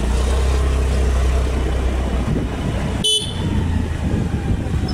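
Road and engine noise while riding a two-wheeler in city traffic, a steady low rumble that is heaviest for the first two seconds. About three seconds in, a vehicle horn gives one short toot.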